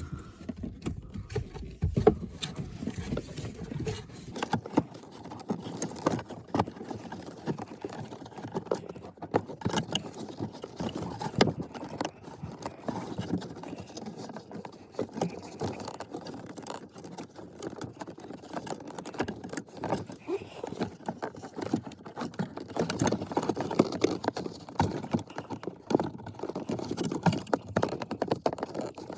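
A pleated cabin air filter being worked by hand into its housing under a car's dashboard: irregular rustling and scraping, with scattered light plastic knocks and clicks.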